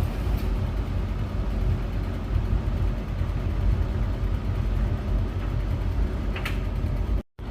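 Beko WS832425s washing machine spinning, its drum giving a steady low rumble.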